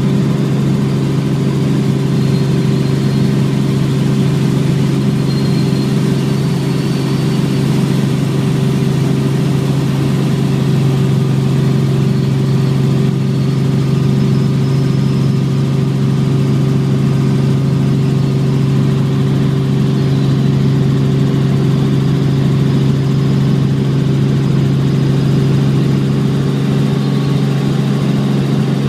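Helicopter in flight heard from inside the cabin: the steady drone of its engine and rotor, with a few constant low hum tones that do not change.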